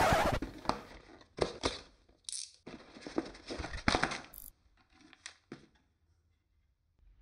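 Clear plastic bags of Gundam model-kit runners crinkling and rustling as the kit box is handled, in a series of short bursts that thin out after about four and a half seconds. A brief loud noisy swish at the very start.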